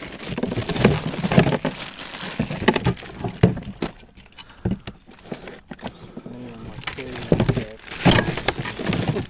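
Plastic bags crinkling and rustling as gloved hands rummage through a cooler, with irregular knocks and crackles of its contents, including a bag of ice, being shifted.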